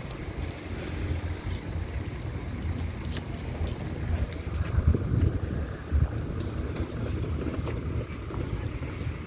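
Wind buffeting the microphone: a low, uneven rumble, with a couple of sharper jolts about five and six seconds in.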